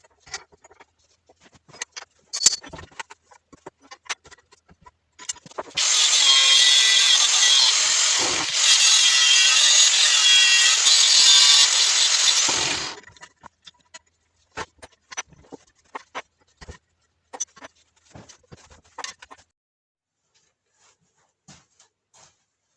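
A power tool runs under load for about seven seconds, its pitch wavering, with a brief dip partway through. Scattered clicks and knocks of handling come before and after it.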